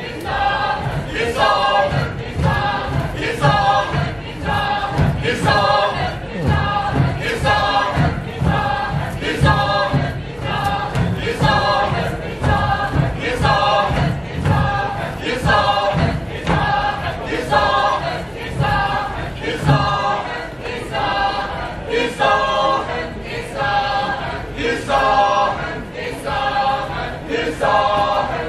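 A group of voices singing together in a steady pulse of about one beat a second; the low part thins out about twenty seconds in.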